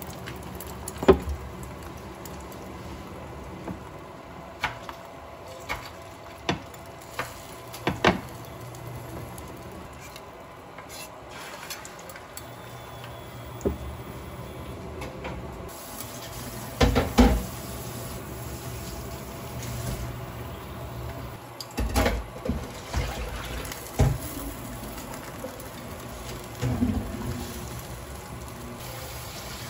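Beaten egg poured into a square omelette pan, then irregular clicks, taps and scrapes of metal chopsticks and a spatula against the pan as the omelette is rolled, over a steady low background hiss.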